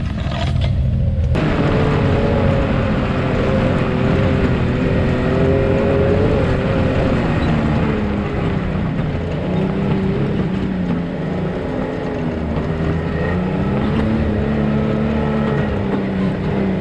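Side-by-side UTV engine running as the machine crawls over a rocky trail, its pitch rising and falling gently with the throttle. For the first second or so branches brush against the vehicle, then the sound changes sharply to the engine alone.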